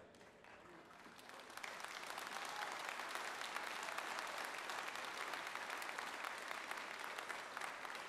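Large crowd applauding, swelling over the first two seconds and then holding steady.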